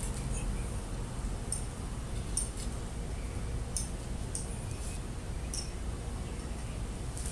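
Outdoor background: a steady low rumble with a few short, high-pitched chirps spaced irregularly, about five in all.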